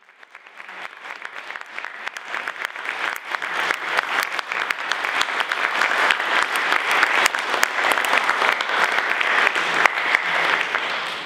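Concert audience applauding, swelling over the first few seconds into steady clapping from many hands.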